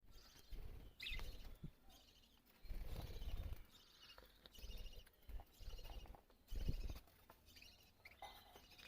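Small pet parrots chirping and twittering in short repeated bursts, with separate bursts of low rumble.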